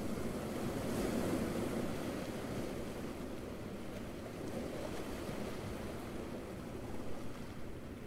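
Small waves washing onto a beach: a steady hiss of surf that swells in the first couple of seconds and then eases.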